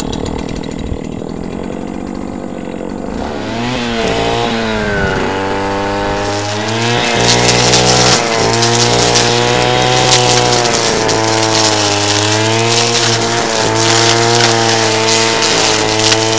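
Two-stroke petrol brush cutter running, revving up about three or four seconds in and then cutting through grass and weeds, its engine pitch dipping and recovering again and again as the blade takes the load.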